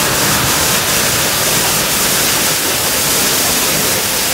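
Steady rushing of running water, an even, loud hiss with no breaks.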